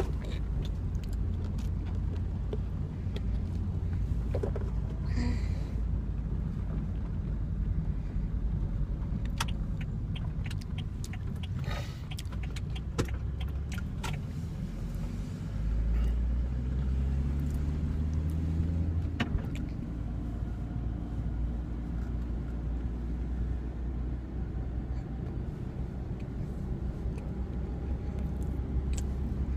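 Car interior noise while driving: a steady low engine and road rumble, with the engine note rising as the car speeds up for a few seconds past the middle, then dropping back. Occasional small clicks and rustles on top.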